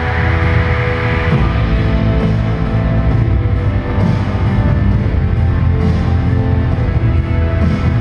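Loud music with a strong, heavy low end, playing steadily throughout.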